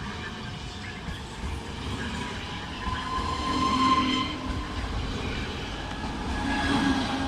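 Regional passenger train running past close alongside a station platform: steady rumble of wheels on rail with held whining tones that swell about four seconds in and again near the end.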